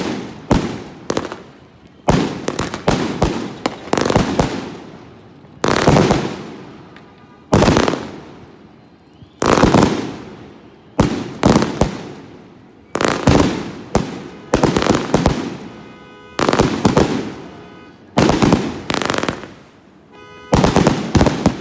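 Fireworks going off: clusters of loud bangs every one and a half to two seconds, each fading away as it echoes.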